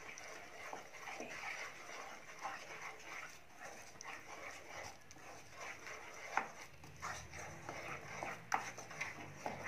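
Spatula stirring thick ground-lentil paste and eggplant in a nonstick kadhai: soft, wet scraping with small clicks, and a few sharper knocks in the last few seconds.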